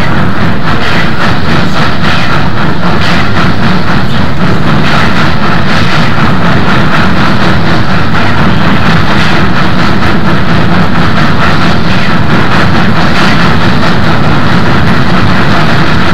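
Southern Pacific AC-11 cab-forward steam locomotive 4274, a 4-8-8-2 articulated, working hard upgrade close by: a fast, steady run of exhaust chuffs over heavy running-gear and rail noise.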